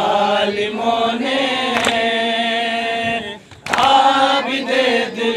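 Men chanting a noha, a Shia Muharram mourning lament, in sustained sung lines, with a sharp slap about every two seconds from hands beating on chests in matam. The chanting breaks off briefly about three and a half seconds in, then comes back louder.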